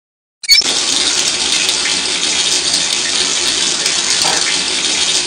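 Water running from a faucet into a sink, starting suddenly about half a second in and then pouring steadily.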